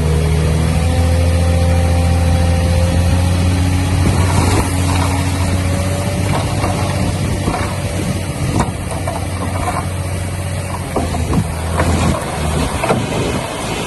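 Heavy diesel engine of earth-moving machinery running steadily at a low, even note, with scattered knocks and clatter from about four seconds in. The engine note drops away near the end.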